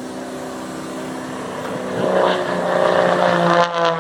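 Propeller-driven aircraft flying past: its engine note grows louder about halfway through, then drops steadily in pitch as it passes.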